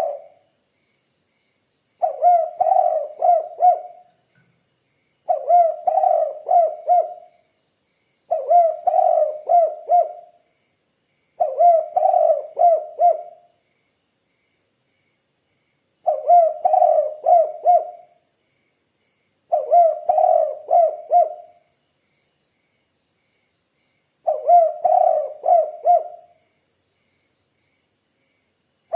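Spotted dove (tekukur) cooing. Seven phrases of several quick coos each, every phrase about two seconds long, with silent pauses of one to three seconds between them.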